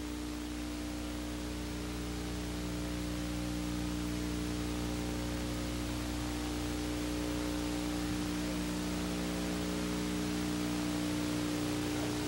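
Steady hiss and electrical hum of an old videotape playing a blank stretch with no programme sound, growing slowly a little louder.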